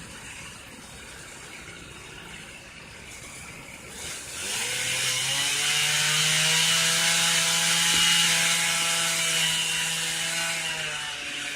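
Chainsaw revs up about four seconds in and runs at full throttle, cutting eucalyptus wood, then eases back near the end.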